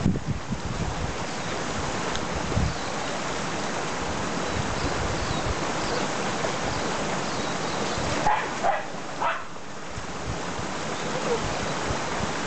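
Steady rush of a shallow river as a pack of dogs wades through it. A dog barks a few times about eight to nine seconds in.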